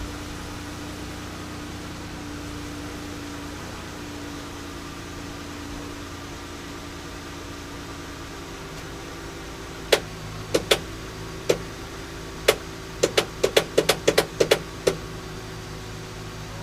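A steady low hum, then about ten seconds in a run of some fifteen sharp knocks or clicks over roughly five seconds, closest together in the middle.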